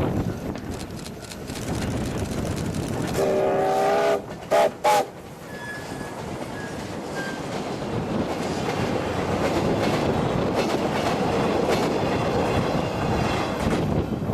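A train horn sounds one blast of about a second, then two short toots. The train then runs past the level crossing with a rumble that builds over a few seconds and holds steady.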